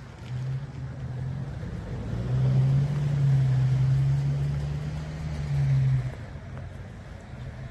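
A motor vehicle passing: a steady low engine hum that grows louder, holds for a few seconds, then fades about six seconds in.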